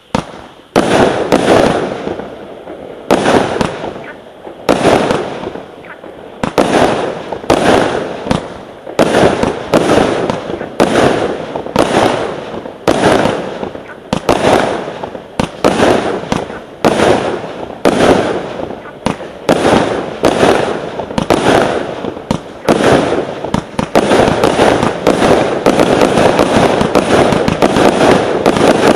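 iCake 50-shot, 19 mm firework cake firing shot after shot, about one a second, each a sharp bang that fades over about a second. From about 24 seconds in the shots come closer together and run into a continuous rattle.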